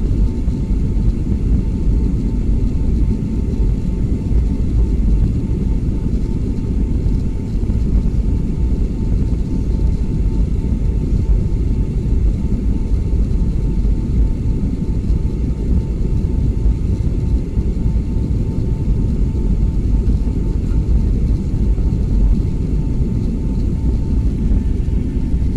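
Steady low rumble of jet airliner cabin noise inside a Boeing 757-200, with a faint steady whine above it.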